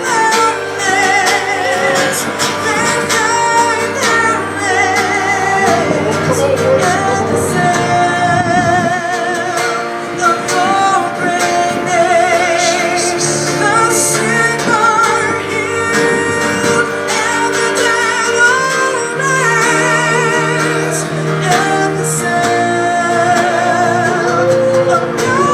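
Live church worship music: singers holding long notes with vibrato over guitar and a steady bass.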